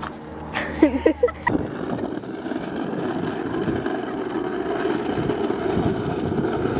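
A few short squeaks about a second in, then the hard plastic wheels of a Razor trike rolling over asphalt as it is towed: a steady rough rumble that slowly grows louder.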